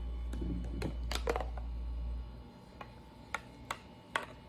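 Several light, sharp clicks and taps, spaced irregularly, over a low steady hum that cuts off about halfway through.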